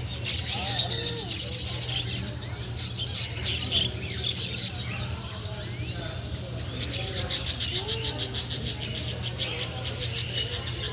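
Many caged pet birds chirping and twittering, with a quick run of about five chirps a second near the end, over a steady low hum.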